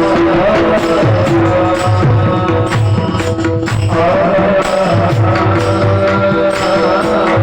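Marathi devotional kirtan music: a melody sung over a held drone, with steady hand-drum strokes and small cymbal clashes keeping the beat.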